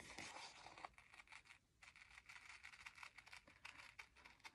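Small scissors faintly snipping through paper, a quick run of little snips with the sheet rustling as it is turned, fussy-cutting closely around a printed image.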